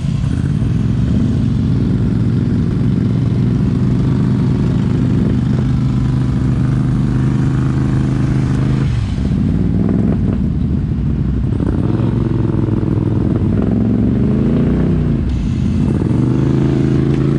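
ATV engine running at a steady throttle, its pitch dropping about nine seconds in, then rising and falling as the throttle is worked, before settling again.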